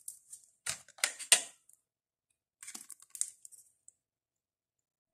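Short scratches and clicks of a marker pen being handled and tried on a writing board, the pen having run dry. They come in two brief clusters, the first in the opening second and a half and the second around three seconds in.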